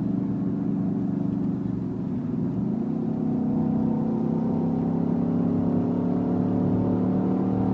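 Synthesized motorcycle engine sound from the Renault Clio's R-Sound Effect, played through the cabin speakers and following the engine revs: a steady drone, a brief change in pitch about two seconds in, then a slow rise in pitch.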